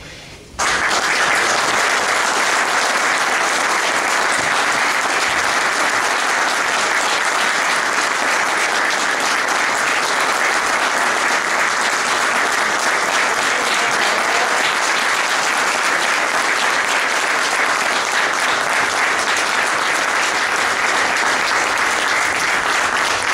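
A roomful of people applauding, steady clapping that starts suddenly about half a second in and cuts off abruptly at the end.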